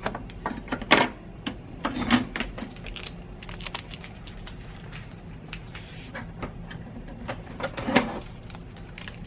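Blue shipping tape being peeled off the plastic body of a new Epson ET-2720 printer: irregular crackles and clicks, with louder knocks about a second in and near the end as the printer is handled.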